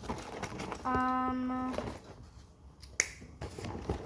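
A person humming one steady note for about a second, with small clicks around it and a sharp click about three seconds in.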